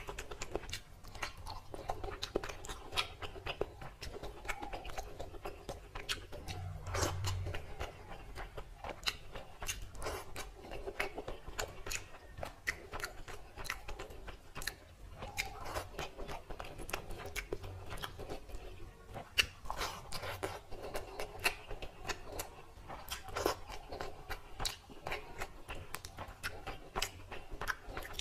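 Close-up eating by hand: fingers squishing and mixing rice with curry on a plate, with wet chewing and lip smacks as a steady run of small irregular clicks.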